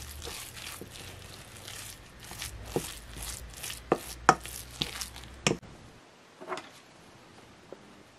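A spatula stirring sieved boiled egg in a stainless steel bowl: soft repeated scraping strokes, then several sharp knocks and clicks of the spatula against the metal bowl. The sound stops about six seconds in.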